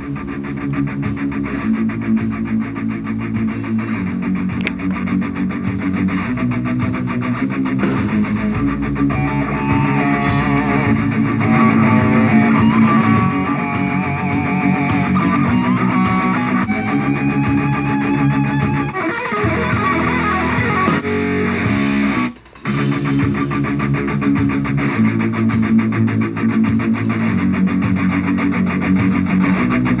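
Guitar-heavy rock music playing back through an LG LPD103 boombox, cutting out very briefly about two-thirds of the way through.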